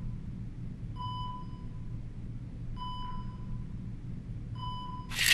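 A single-pitched electronic beep sounds three times, about two seconds apart, over a low steady hum. A sudden rush of noise breaks in at the very end.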